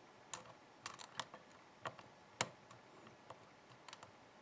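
Faint, irregular metallic clicks of a lock pick working the serrated pin stacks of a pin-tumbler challenge lock under tension, pins setting one by one just before it opens; the sharpest click comes about halfway through.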